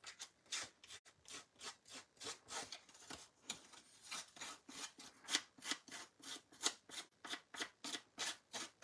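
Small scissors scraped again and again along the edge of a piece of card stock, distressing the paper edge so that it frays and sheds crumbs. The strokes are short and scratchy, about three a second.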